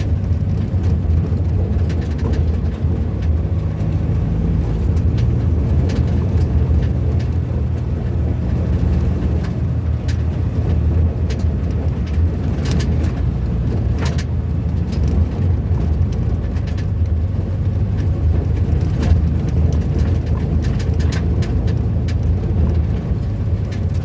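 A vehicle's engine running at low, steady revs with road noise, rolling slowly downhill, with scattered small knocks and rattles.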